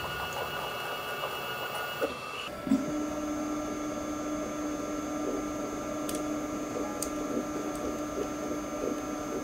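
Motor drive of a force-testing rig running as it raises the mounted scalpel and lowers it back into the meat. It makes a steady whine of several tones, and the pitch changes about two and a half seconds in.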